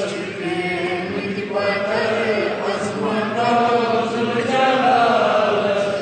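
A child's voice singing a Kashmiri naat, a devotional song in praise of the Prophet, in long, drawn-out melodic phrases.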